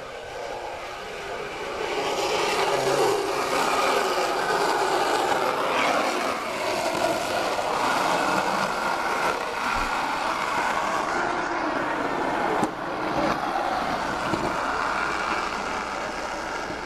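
Small wooden race cart's hard wheels rolling fast down an asphalt road, a steady scraping rumble that grows louder about two seconds in.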